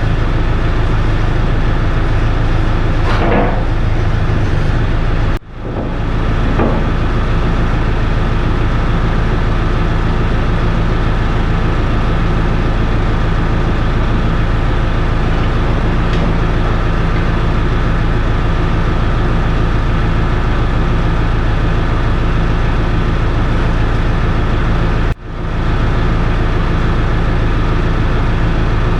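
The New Holland C185 track loader's diesel engine running steadily, cutting out abruptly twice for a moment.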